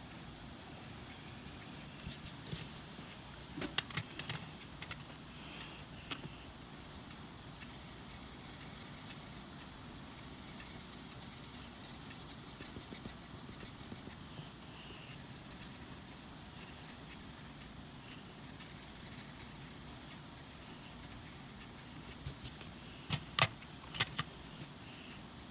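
Coloured pencils scratching on paper in steady strokes, with scattered sharp clicks and clinks; the two loudest come about a second apart near the end.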